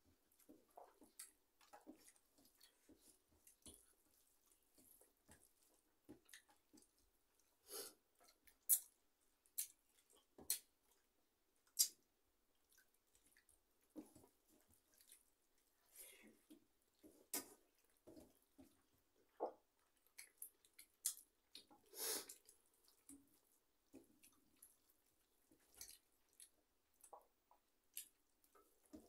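Quiet sounds of two people eating rice by hand from steel plates: scattered short smacks and clicks of chewing and fingers working the food, with a few louder ones about nine, twelve and twenty-two seconds in.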